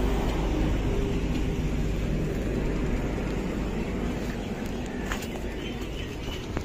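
A vehicle engine running steadily with a low rumble, easing off over the few seconds. About five seconds in come a few light metal clicks as a tyre lever works against the motorcycle wheel rim.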